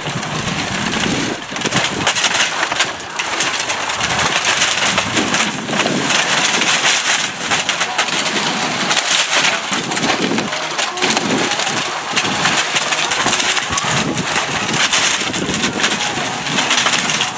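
Roof tear-off: old cedar shakes and asphalt shingles being ripped up and thrown down the roof. It makes a dense, steady clatter of scraping, splintering wood and falling debris, full of sharp cracks.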